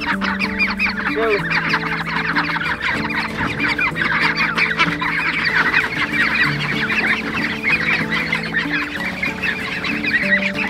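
A crowd of ducklings peeping constantly, many short high peeps a second, over background music with held low notes.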